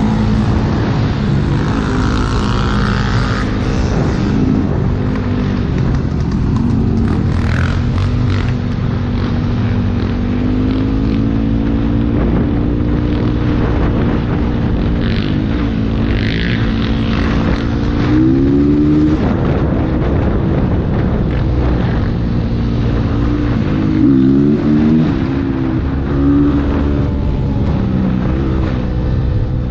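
Motorcycle engine running while riding, its pitch climbing under throttle about two-thirds of the way through and again shortly after, over heavy wind rumble on the microphone.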